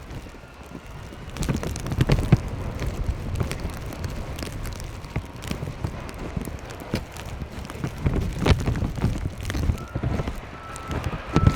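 Blizzard wind buffeting the microphone in uneven gusts, with scattered knocks. Near the end a vehicle's reversing alarm begins to beep.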